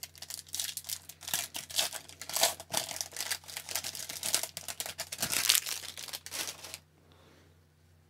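Foil wrapper of an Upper Deck hockey card pack crinkling and tearing as it is ripped open and peeled off the cards, stopping about a second before the end.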